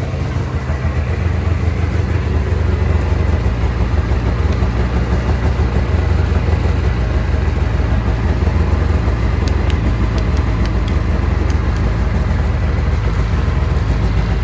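Ski-Doo Formula 500 snowmobile's two-stroke engine idling steadily after its first start following a voltage regulator replacement. A few faint clicks come a little past the middle.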